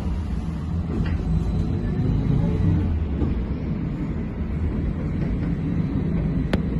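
Cabin ride noise of a Trolza-5275.06 Optima trolleybus on the move: a steady low rumble of the body and running gear, with one sharp click about six and a half seconds in.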